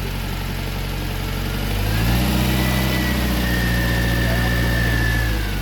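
Classic Mini's freshly rebuilt 1098 cc A-series engine, with twin SU carburettors and an RC40 exhaust, running at idle. About two seconds in it is brought up to a higher, steady speed for about three seconds, then settles back to idle near the end.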